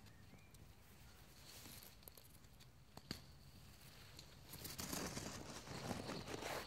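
Cherry tree leaves rustling and brushing against the camera as it is pushed into the foliage. The rustle builds over the last two seconds, after a faint stretch broken by one sharp click about three seconds in.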